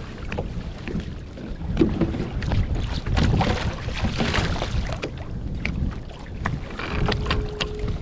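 Wind buffeting the microphone on a kayak on open water, with water splashing against the hull and scattered light knocks. A brief steady tone sounds near the end.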